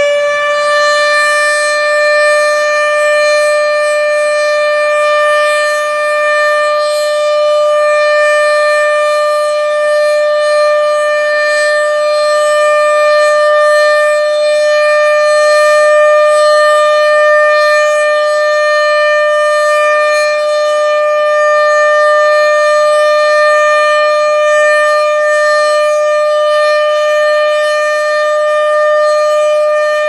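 ASC OM-120 omnidirectional electromechanical warning siren sounding its weekly test: it finishes winding up right at the start, then holds one loud, steady tone at full speed.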